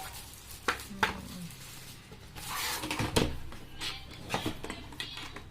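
Handling of a keyboard's box and packaging during unboxing: sharp plastic clicks and knocks, with a rustle about two and a half seconds in and the loudest knock just after it.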